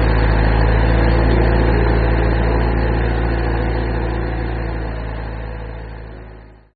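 A vehicle engine running steadily with a low hum, fading out over the last few seconds.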